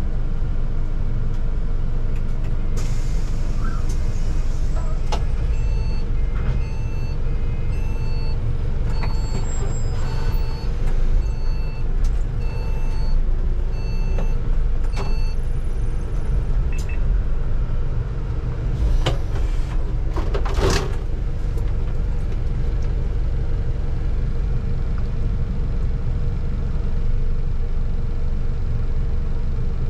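City bus engine and road rumble heard from the driver's cab while creeping through traffic. A run of short electronic beeps repeats about once a second for roughly ten seconds near the start, and a brief air hiss comes about two-thirds of the way through, typical of a bus's air brakes.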